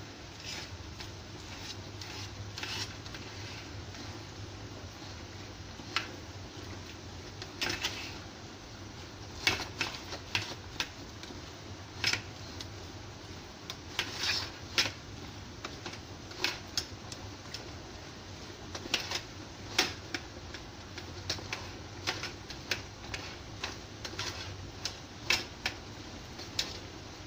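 A spoon scraping and knocking against a metal steamer tray while steamed glutinous rice is stirred: irregular sharp clicks and scrapes, growing frequent after the first few seconds, over a steady low hum.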